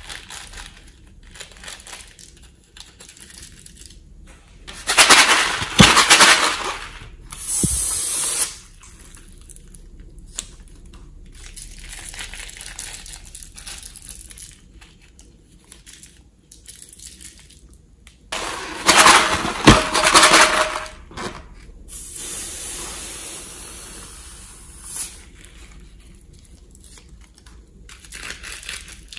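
Small squeeze tubes being pressed out onto slime covered in sequins: several loud, noisy squirts, the biggest about five seconds in and again near twenty seconds, with quieter crackling between.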